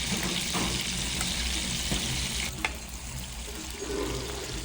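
Prawns sizzling in hot olive oil with garlic and chili, a steady hiss of spitting oil. A short click comes about halfway, after which the sizzle is a little softer.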